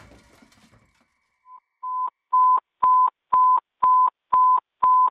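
A run of about eight short electronic beeps at one steady pitch, two a second, the first couple quieter: fire station dispatch alert tones sounding ahead of an emergency call. Before them, in the first second, the last of a crash noise fades out.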